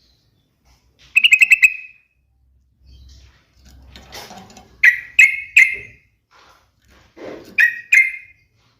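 Yellow-vented bulbul (trucukan) calling: a quick run of bubbly notes about a second in, then three loud short notes in the middle and two more near the end.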